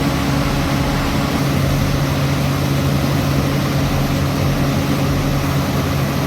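Heavy vehicle engines running steadily as machinery rolls past, a constant low hum over a broad rumble.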